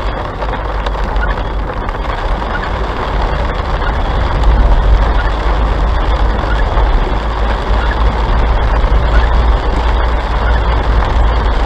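Steady road and engine rumble heard from inside a car driving at about 35 km/h.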